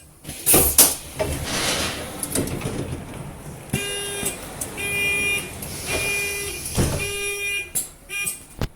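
London bus door equipment: a sharp blast of compressed air and hiss as the pneumatic doors work, then a pitched warning beep repeating about once a second.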